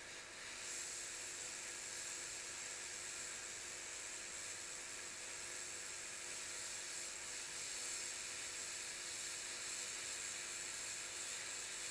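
Hot-air rework station (Blackjack BK6000) blowing a steady hiss of hot air onto a phone logic board, reflowing the solder on pads where capacitors were removed. The hiss starts just under a second in.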